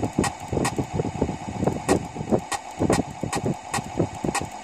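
Simulated diesel emergency generator running, an engine-room simulator's engine sound played through computer speakers: a steady engine note with rapid, irregular knocks.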